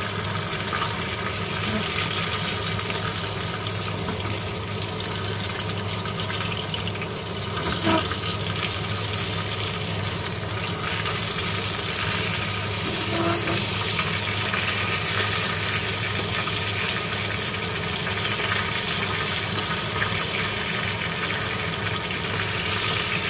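Whole fish frying in hot oil in a wok, a steady sizzling hiss, with a low steady hum underneath. A single knock about eight seconds in.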